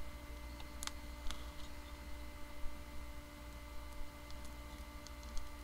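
Scattered light clicks and taps of a mailed package being handled and opened, over a steady low hum.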